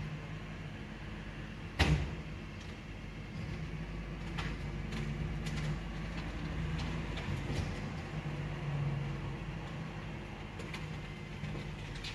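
Rear-loader garbage truck running with a steady low hum, with one loud clank about two seconds in and scattered knocks and clicks as a large wheeled bulk bin is rolled up and hooked onto the bin lifter.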